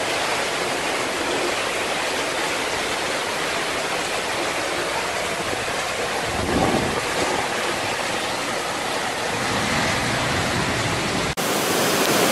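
Heavy tropical-storm rain and floodwater rushing across paved ground, a steady dense hiss of water that swells briefly about halfway through. Near the end it cuts off abruptly and a different, louder hiss takes over.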